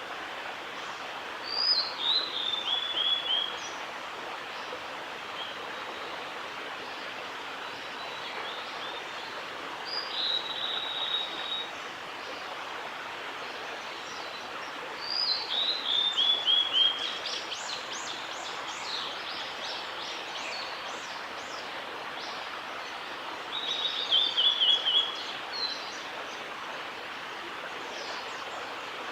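Male blue-and-white flycatcher singing: four song phrases several seconds apart, each a high whistled note or two followed by a quick run of short notes. Short high chirps come in between, over a steady background hiss.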